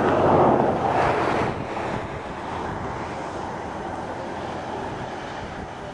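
Thunderstorm outflow wind buffeting the microphone. A gust is loudest in the first second and a half, then it eases to a steady rush.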